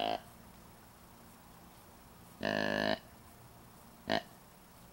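Deer grunt call blown in short bursts to call in a whitetail buck: the end of one grunt at the start, a longer half-second grunt about two and a half seconds in, and a brief one near the end.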